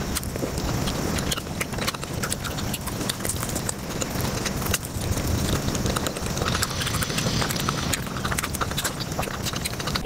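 Close-miked eating sounds played back at about five times normal speed: a fast, unbroken run of chewing, smacking and clicking mouth noises as Indian sweets are eaten.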